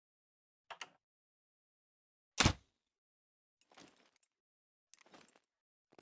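Makeshift crossbow: a quick double click, then a loud sharp snap with a heavy thud about two and a half seconds in, as the string is released, followed by two faint short rustles.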